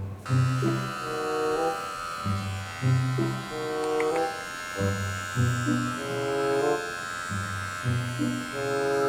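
Electric pet hair clipper buzzing steadily as it shaves a toy poodle's fur, starting a moment in, over background music.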